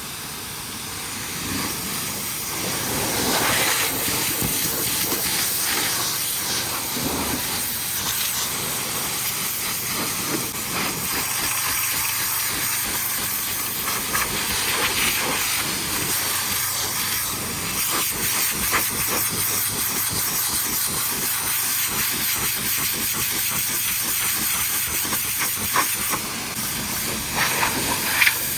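High-pressure washer jet spraying water against a truck, a steady hiss that grows louder about two seconds in.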